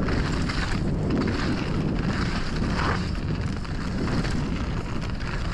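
Mountain bike riding fast down a loose loam trail: wind rushing over the microphone and the rumble of tyres in the dirt, with frequent rattles and knocks from the bike.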